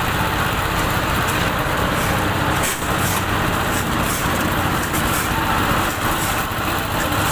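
A machine engine running steadily with a low hum, with a few short scraping noises over it.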